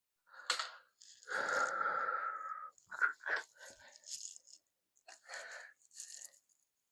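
Plastic slot car track sections being handled: a click, a longer scraping squeak, then a run of small clicks and rattles.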